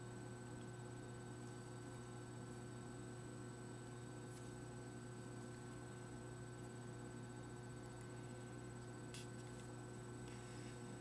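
Steady low electrical hum with a few faint ticks, one about four seconds in and one near the end.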